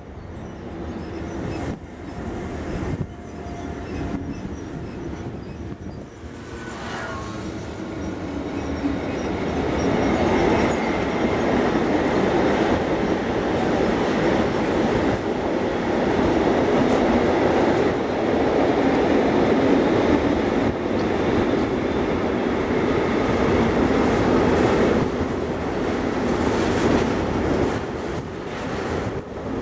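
Freight wagons rolling past on the rails, first covered wagons and then tank wagons, with a steady rumble of wheels and intermittent clicks. It grows louder over the first ten seconds and then holds.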